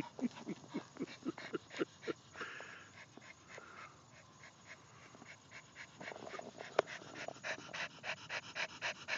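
Miniature pinscher panting quickly in short, even breaths while digging with her paws in the dirt and grass under a wooden fence. The panting eases off for a few seconds in the middle and picks up again near the end.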